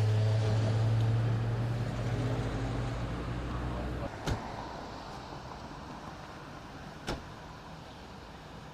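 A motor vehicle running with a steady low hum that stops about four seconds in. It is followed by two sharp knocks about three seconds apart.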